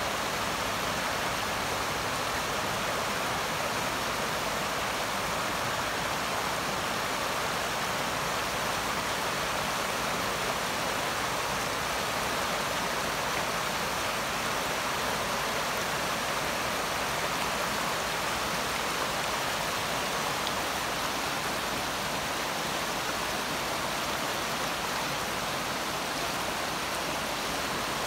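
Floodwater rushing steadily, an even hiss that does not change.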